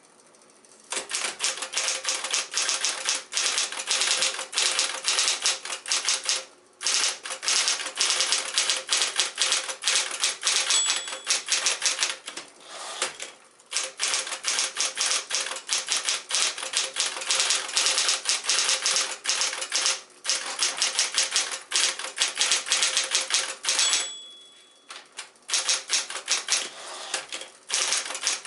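Smith-Corona Coronet Electric typewriter typing in fast runs of key strikes over the steady hum of its electric motor, with a few short pauses between runs. A brief ring sounds twice, typical of the margin bell near the end of a line.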